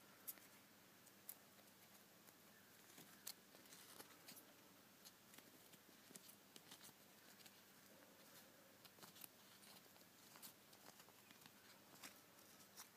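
Faint, irregular crackling and small clicks of a pleated paper muffin liner being peeled by hand off a small chocolate muffin.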